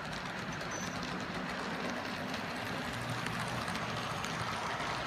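Rivarossi HO-scale model Allegheny steam locomotive running on track: a steady whir of its motor and wheels rolling on the rails, growing a little louder as it passes close.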